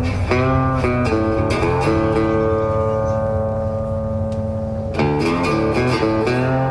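Background music: plucked guitar notes, with fresh chords struck near the start and again about five seconds in, a long chord ringing out in between.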